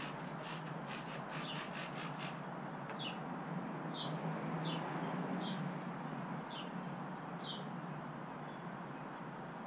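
A trigger spray bottle of detail spray squirted about eight times in quick succession, then a microfiber towel wiped over gloss paint, giving a short falling squeak on each stroke, under a second apart. A steady low hum runs underneath.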